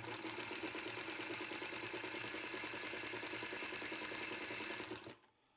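Vintage Singer electric straight-stitch sewing machine, fitted with a zigzag attachment, sewing at a steady speed: a fast, even run of stitches over a low motor hum. It stops about five seconds in.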